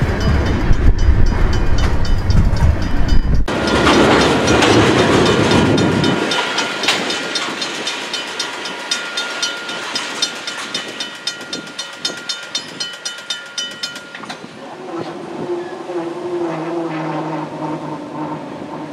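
Slow freight train of tank cars rolling by: a heavy rumble at first, then a steady clickety-clack of wheels over rail joints, about two clicks a second, fading as the train moves away. Near the end a distant locomotive horn sounds for a few seconds.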